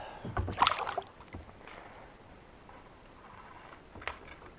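A brief burst of splashing and knocking against a kayak hull as a large Saratoga is handled in the water alongside, then faint water lapping, with a single click near the end.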